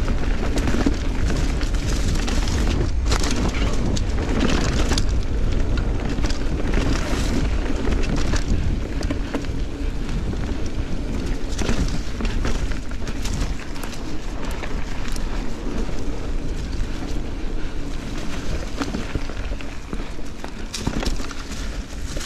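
Giant Trance 29 full-suspension mountain bike ridden fast over dirt singletrack: a steady rumble of tyres and wind buffeting the camera microphone, with frequent knocks and rattles as the bike hits roots and bumps.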